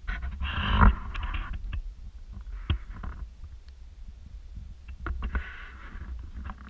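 Handling noise on a GoPro Hero 4 Silver's built-in microphone as the camera is turned over in the hand: a low rumble with two spells of rubbing and rustling, the louder one about a second in, and scattered small clicks and knocks.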